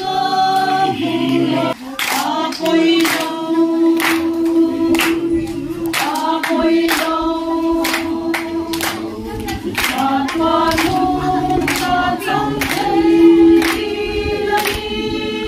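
A group of men and women singing together in a choir, holding long notes, with sharp ticks keeping a steady beat about twice a second.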